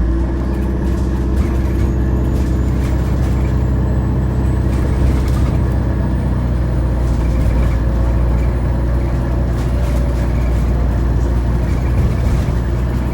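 Inside an Alexander Dennis Enviro400H City hybrid double-decker bus on the move: a steady low rumble with several droning tones from the drivetrain, the weird sound these hybrid buses are known for.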